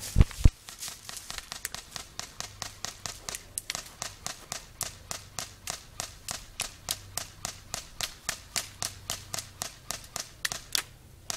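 Airsoft gunfire: a long, steady string of sharp semi-automatic shots, about three a second, with a couple of louder, closer cracks right at the start.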